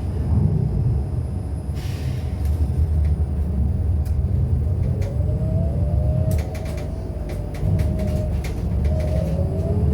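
MAZ-303E23 electric bus on the move, heard from inside the cabin: a steady low rumble of the running gear, with the electric traction motor's whine rising in pitch from about halfway as the bus accelerates, and rising again near the end. A short hiss about two seconds in and a few clicks a little later.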